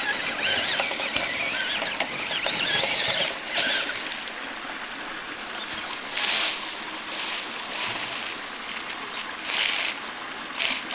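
Electric drive of a radio-controlled rock crawler whining as it climbs, its pitch wavering with the throttle, then running in short surges a few times near the end, over a steady hiss.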